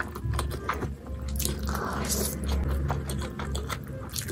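Close-miked chewing of a large mouthful of stir-fried noodles: wet mouth noises with many small clicks and smacks.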